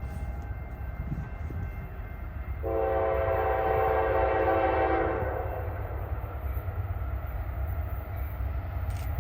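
Diesel locomotive air horn sounding one long blast, a chord of several tones held for about two and a half seconds, starting a few seconds in. Under it runs the steady low rumble of the approaching train.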